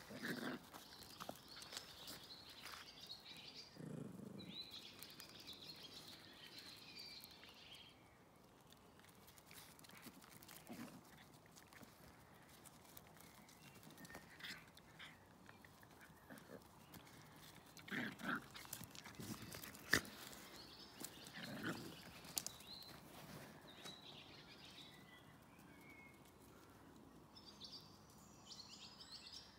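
Two dogs, a small adult dog and a puppy, play-fighting: a few short, low growls and scuffles, faint overall.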